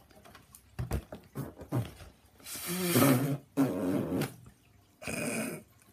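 A foil helium balloon crinkling and squeaking as it is handled and rubbed against hands and face. There are a few light crackles first, then a long loud rubbing squeal through the middle and a shorter rub near the end.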